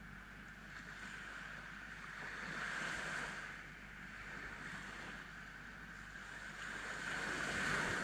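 Small sea waves breaking and washing up on a sandy beach, swelling louder about three seconds in and again near the end as each wave breaks.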